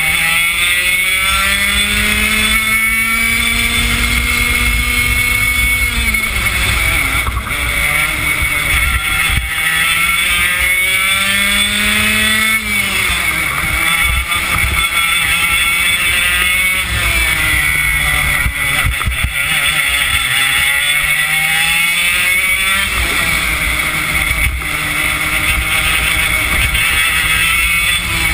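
Two-stroke single-cylinder Yamaha KT100 kart engine at racing speed, heard onboard. Its revs climb steadily down each straight and drop sharply into the corners, three times over.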